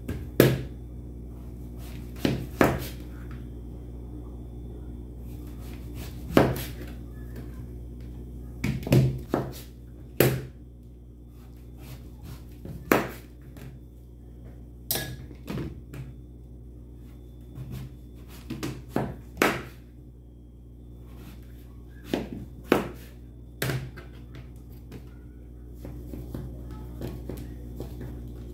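Kitchen knife cutting a peeled zucchini into thick rounds, each cut ending in a sharp thunk on the cutting board. The knocks come irregularly, a second or more apart, with a few close pairs.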